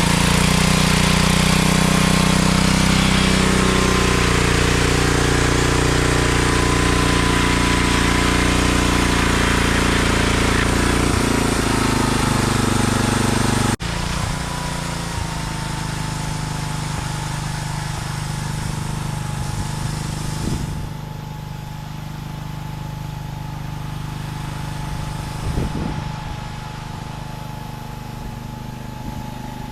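Gasoline engine of a home-built sawmill running steadily and loud, with a dense hiss over it as the mill saws cedar. About halfway through, the sound drops abruptly to a quieter, steady engine run.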